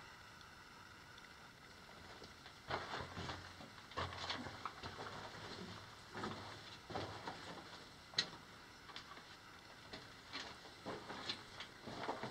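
Footsteps crunching on loose rock and rubble on a mine-tunnel floor, irregular, starting about two and a half seconds in, with one sharp click partway through.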